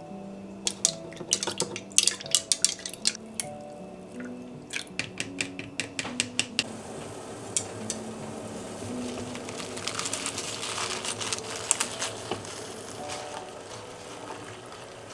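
A metal spoon stirring seasoning liquid in a measuring cup, with quick runs of clinks. Then a pan of water at a rolling boil, bubbling and hissing as spinach is pushed into it. Soft background music plays throughout.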